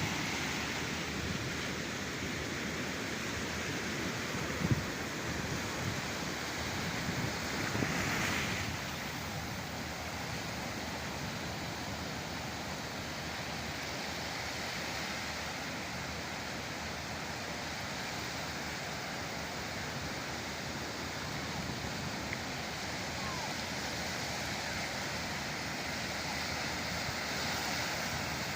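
Sea surf: waves breaking and washing in a steady rushing noise, with a stronger surge about eight seconds in and a brief sharp bump about five seconds in.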